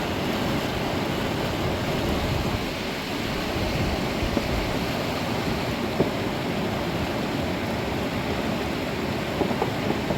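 Steady rush of flowing river water, with a few faint short clicks or splashes about the middle and near the end.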